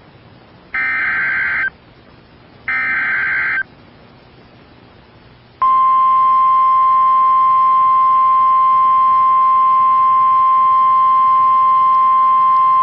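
NOAA Weather Radio emergency alert: the last two one-second bursts of the screechy digital SAME header, a second apart, then about two seconds later the loud, steady 1050 Hz warning alarm tone comes on and holds. The sequence signals that a new warning follows, here a severe thunderstorm warning.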